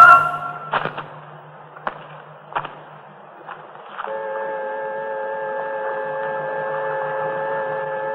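A few scattered sharp clicks, then about four seconds in a steady electronic hum of several fixed pitches starts and holds.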